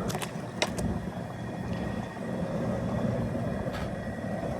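Gas burner under a crawfish boil pot, its flame heating the water with a steady low rushing noise. A few light clicks or knocks come near the start and once more late on.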